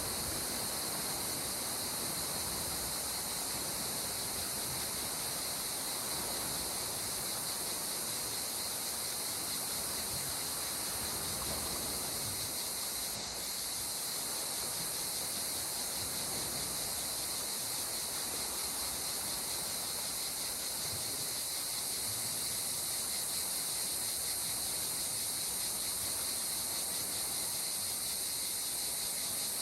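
Steady high-pitched chirring of insects, unbroken and even, over a continuous wash of calm sea water.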